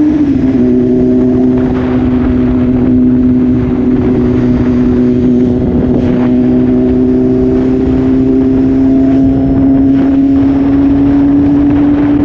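BMW S1000RR inline-four engine with an Austin Racing exhaust, under way at a fairly steady engine speed. The note drops slightly about half a second in, then holds and slowly rises, over a haze of wind and road noise.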